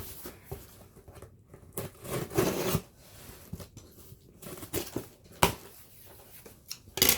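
A mail box being opened by hand: tape tearing and packaging crinkling and scraping in irregular bursts, with a sharp click about five seconds in and a loud burst near the end.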